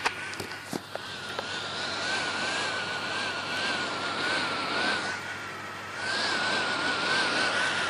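HP 455 laptop's cooling fan and hard drive running erratically at power-on, a hissing whir that surges up and down with a warbling whine underneath, after a few clicks in the first second or so. The erratic fan and drive noise goes with the laptop's failure to start, a fault the motherboard replacement later cured.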